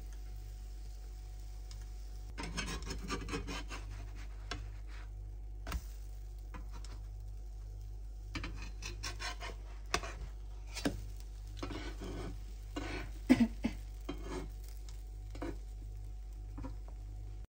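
A slotted spatula scraping and tapping on a nonstick frying pan as pancakes are lifted and flipped, with a run of scraping a couple of seconds in and several sharp clicks, the loudest about 13 seconds in. A steady low hum lies under it.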